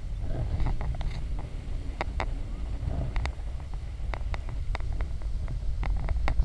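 Steady low rumble of wind and boat motion buffeting the microphone, with many irregular sharp ticks and small splashes of water.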